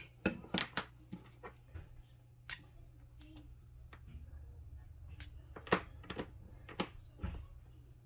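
Small plastic clicks and taps as a barrel-plug DC power lead and its interchangeable plug tips are handled and fitted together, about a dozen sharp clicks, the loudest a little before six seconds in. A low steady hum sits underneath.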